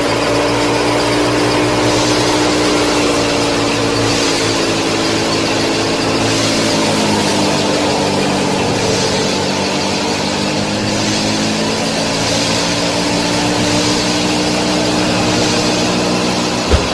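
Small motor of a miniature model tractor running steadily; its pitch sags slightly around the middle, as if under load, and then climbs back.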